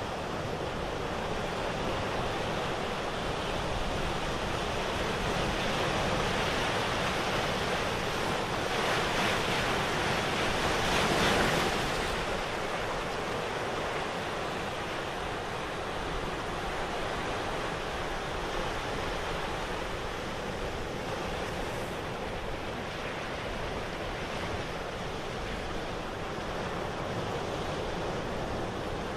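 Steady rushing surf sound of ocean waves, swelling louder about a third of the way through and then easing back.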